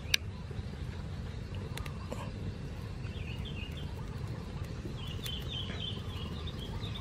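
A fire of loose dry rice straw burning under a steel drum, with a steady low rumble and scattered sharp crackles. Birds chirp in the background about three seconds in and again near the end.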